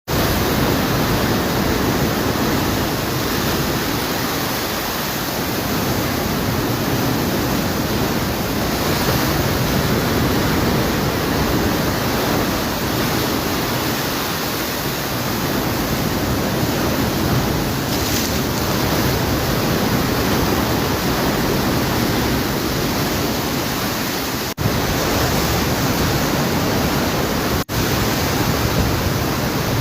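Steady rushing of floodwater, a dense unbroken noise that cuts out briefly twice near the end.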